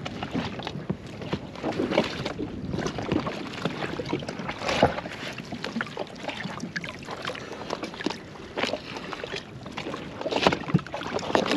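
Water slapping and sloshing against the hull of a drifting jet ski, with scattered knocks and rustles of gear being handled on board.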